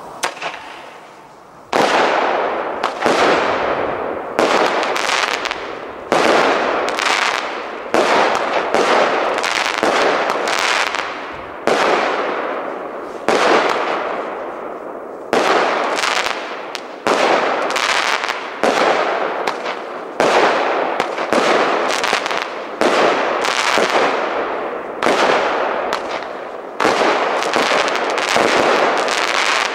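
An El Gato Nueva 25-shot 20 mm firework cake firing, one shot about every second, starting about two seconds in. Each shot bursts overhead into gold crackling stars, and the crackle fades out before the next shot.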